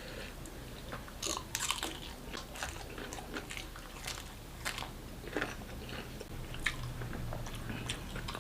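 A person chewing and biting food close to the microphone, with irregular crisp crunches and wet mouth clicks.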